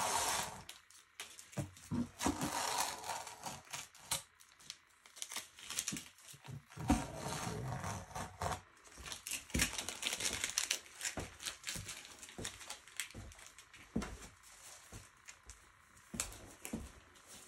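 Crinkling and rustling of something being handled, with many irregular clicks and taps.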